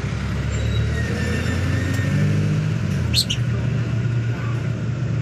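Steady low engine and road rumble heard from inside a vehicle moving slowly in traffic, through an open window. About three seconds in come two short, high squeaks.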